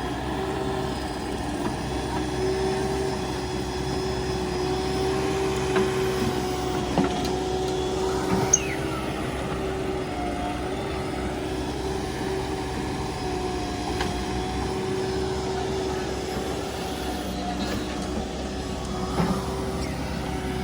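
Heavy diesel machinery, a backhoe loader and tractors, running steadily with a constant hum. A few sharp knocks and clanks, the loudest about eight seconds in.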